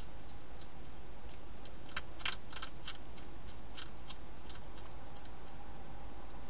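Wild hedgehog eating inside a plastic feeding box: irregular sharp crunching clicks of chewing, a quick cluster about two seconds in, then sparser clicks.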